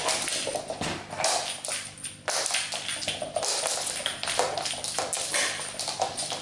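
Cat scrambling and pouncing after a wand toy on a laminate floor: a quick, irregular run of paw taps, claw skitters and scuffs, with the toy dragging and swishing over the boards.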